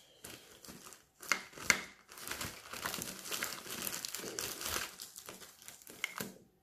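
A bag being opened and rummaged through by hand, crinkling and rustling irregularly, with a couple of sharper crackles about a second and a half in. It stops near the end.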